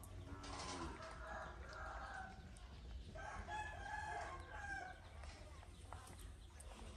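A rooster crowing twice. Each crow lasts about two seconds, with a gap of under a second between them.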